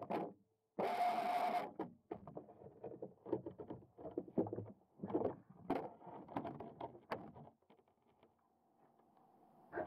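Muffled underwater sloshing and knocking picked up by a camera mounted on a Waverunner Mark III radio-controlled bait boat as it moves over the quarry bottom. There is a loud rush of water about a second in, irregular knocks and swishes after it, and a faint steady hum in the last couple of seconds.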